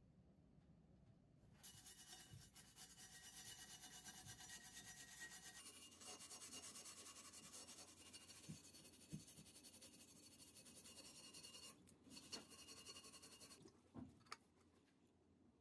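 Faint, steady scratching of a small hand tool rubbed over the cast iron of the stand, starting after a second or so and stopping a couple of seconds before the end, with a few light knocks near the end.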